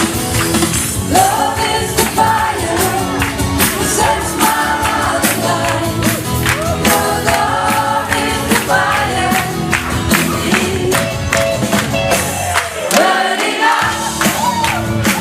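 Music: a song with singing voices over a steady percussion beat; the bass drops out for about a second near the end.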